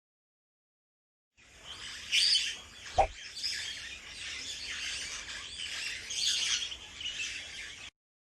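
Forest ambience sound track of birds chirping, starting about a second and a half in and cutting off abruptly near the end. About three seconds in, a brief falling whoosh sound effect marks an arrow being shot.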